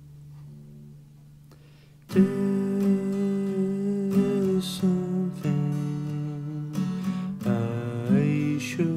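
Instrumental music: quiet held low notes, then about two seconds in the full arrangement comes in suddenly and loudly, led by strummed acoustic guitar.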